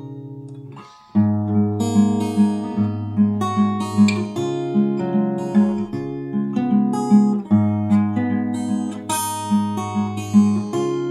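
Background music of picked acoustic guitar. A phrase fades out, a new one starts about a second in with a steady run of plucked notes, and it settles on a held chord near the end.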